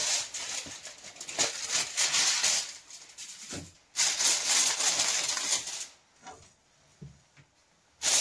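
Aluminium foil crinkling and rustling as hands press and fold it down over a cooking pot's rim, sealing the pot for dum cooking. It comes in three spells of a couple of seconds each, with quiet gaps between.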